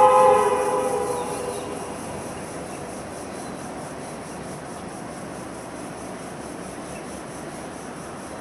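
Diesel locomotive horn sounding a chord of several notes, fading out about a second and a half in. After it there is a steady high insect drone that pulses rapidly.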